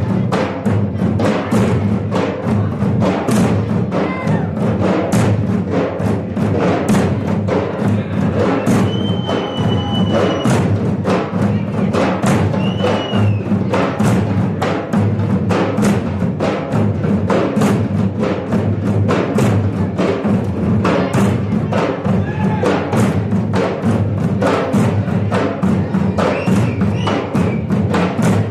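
Massed Maharashtrian dhol drumming: a large troupe beating big barrel drums together in a fast, steady rhythm, sharp stick cracks over deep low strokes.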